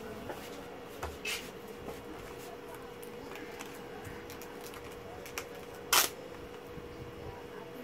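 Hands working a cable connector inside an opened LED TV: light plastic rattles and clicks, with one sharp click about six seconds in, over a faint steady hum.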